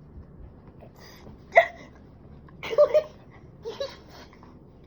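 Short, high voice sounds in three brief bursts about a second apart, more like yelps, giggles or hiccup-like cries than words.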